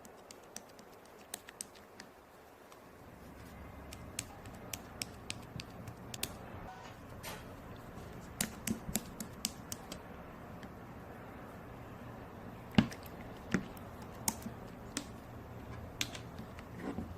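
Scattered sharp clicks and taps at irregular intervals, a few louder knocks among them, over a faint low hum that sets in about three seconds in.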